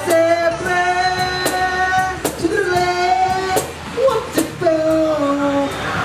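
A high singing voice holding long wordless notes into a microphone, stepping between pitches, with an acoustic guitar and scattered percussion hits beneath.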